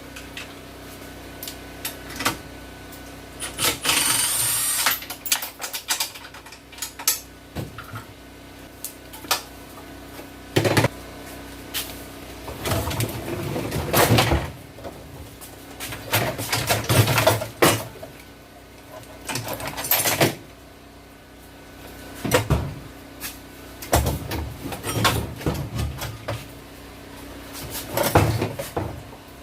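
Hand tools clinking, knocking and scraping on a mini bike's engine and frame in irregular bursts as the motor is unbolted for removal, over a steady low hum.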